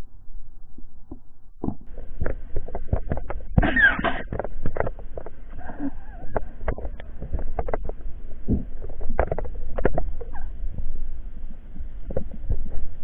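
Muffled underwater sound heard through a camera's waterproof housing: a low rumble with irregular clicks and knocks, and a louder rushing burst about four seconds in.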